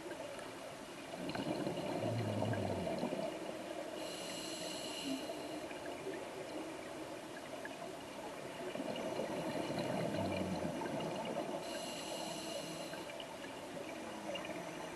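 Scuba diver breathing underwater through a regulator: two slow breaths, each a rush of exhaled bubbles followed by a hissing inhale with a thin whistle.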